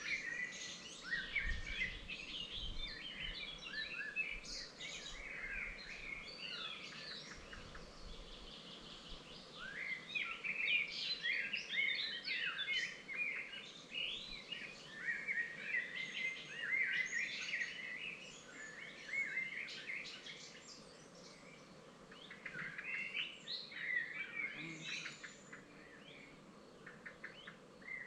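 Several songbirds singing and chirping at once, a dense overlapping chorus of quick high chirps and trills that comes in bursts with short lulls. A faint low rumble sits under the first third.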